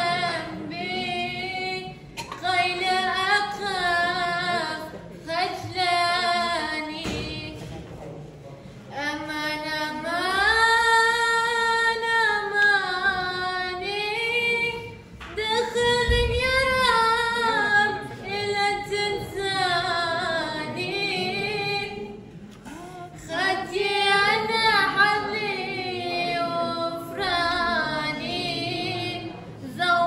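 A woman singing solo and unaccompanied into a microphone, amplified through a PA speaker: long held, wavering notes in slow phrases, with short breaks between phrases.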